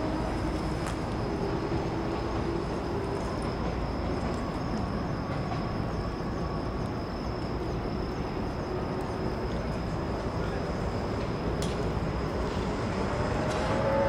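Steady distant city traffic noise, with faint engine tones coming and going. Near the end a pitched tone from a passing vehicle starts to rise.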